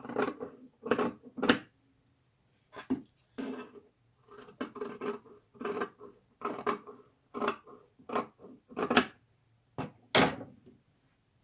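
Scissors snipping through stitched cotton patchwork squares, a string of short separate cuts about one or two a second, the loudest near the end.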